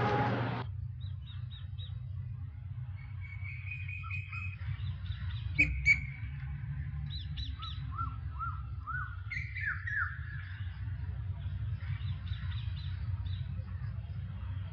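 Birds chirping and calling, with short repeated chirps and a few falling calls, over a steady low rumble. A broad noise cuts off within the first second, and two sharp clicks a fraction of a second apart come about six seconds in.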